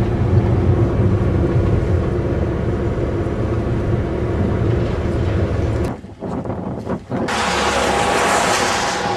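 A car's engine and road noise heard from inside the cabin while driving, a steady low rumble. About six seconds in it breaks off, and a loud steady rushing hiss takes over beside a wet road as an SUV drives past.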